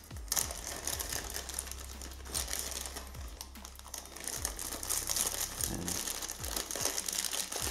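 Clear plastic bag crinkling and rustling as hands unwrap a small RC servo, with many small crackles throughout.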